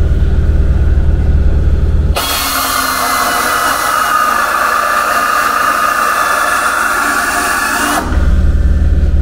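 Pneumatic air drill with a spot-weld cutter running, drilling out factory spot welds in the van's sheet-steel body: a steady hiss of exhaust air with a whine, starting abruptly about two seconds in and stopping near the end. A low rumble fills the first two seconds and returns briefly at the end.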